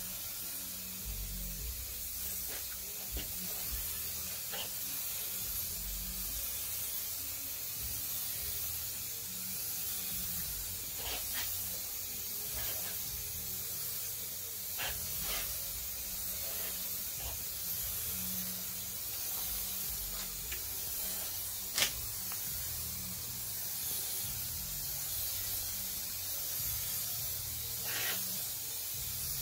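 Aerosol spray paint can hissing steadily as paint is sprayed onto a plastic bumper grille, with a few brief clicks along the way.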